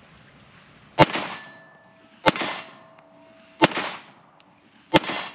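Four pistol shots from a Springfield Armory 1911 DS Prodigy, evenly spaced about one and a third seconds apart, each followed by a brief ringing tone.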